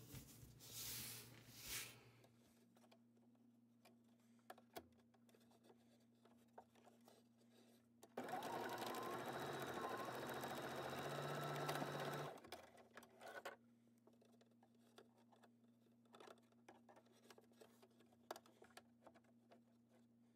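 Domestic electric sewing machine stitching a double-folded quarter-inch hem in gingham cotton, running steadily for about four seconds in the middle. Fabric is rustled by hand at the start, and small clicks of the fabric being handled and the machine being adjusted come before and after the run.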